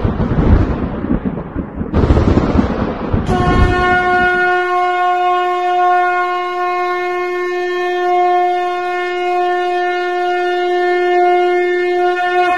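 Conch shell (shankha) blown in one long, steady note that starts about three seconds in and holds without a break. Before it there are loud, irregular noisy crashes.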